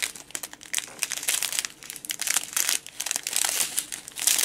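Small plastic zip-top packets of diamond-painting drills crinkling as hands handle and sort them, in irregular rustles that are loudest near the end.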